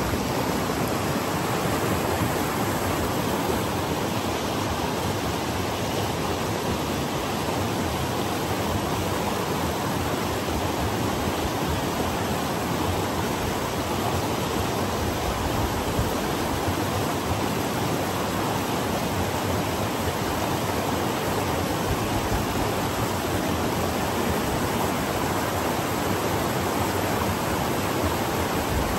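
Shallow river rapids, water rushing steadily over a low rock ledge and boulders: a constant, unbroken rush.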